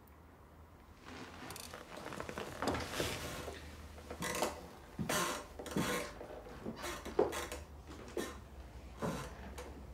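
Handling and movement noises: rubbing and shuffling with light knocks and a glass clinking, in irregular short bursts, as a man gets up from an armchair and moves about with a brandy glass.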